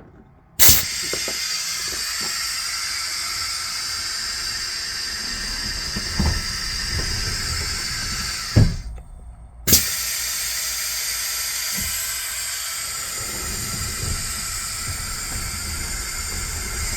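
Compressed air from the bus's air system hissing out in a loud, steady rush. It starts abruptly, cuts off sharply about halfway through, and resumes a second later.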